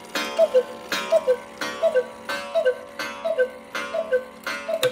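Antique eight-day cuckoo clock striking twelve: two-note cuckoo calls, high then low, each paired with a ringing gong strike, about one every 0.7 seconds. The last strike comes near the end and rings on as the calls stop.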